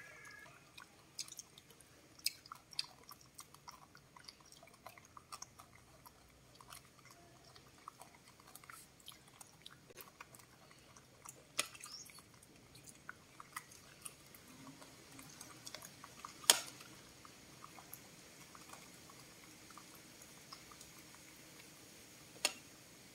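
Two baby monkeys chewing corn kernels picked from a hand, with faint scattered clicks and crunches. One sharper click stands out about two-thirds of the way through.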